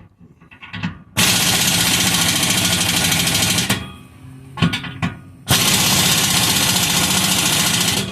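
Impact wrench running down the bolts of an exhaust clamp, in two long bursts of rapid hammering a couple of seconds apart, the first starting about a second in.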